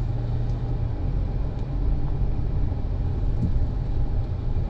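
Cabin noise of a 2004 Bentley Arnage T under way: a steady low rumble from its twin-turbocharged 6.75-litre V8 and the road, heard from inside the car.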